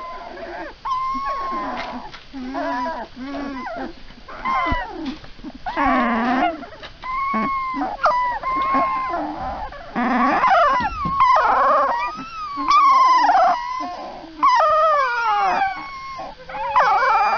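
Several young puppies whining and crying together, high wavering cries that rise and fall and often overlap.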